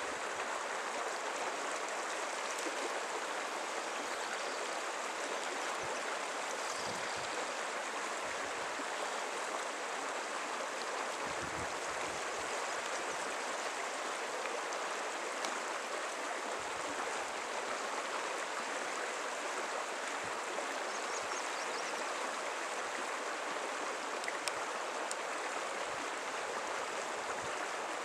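Small creek's water running steadily, an even rushing babble.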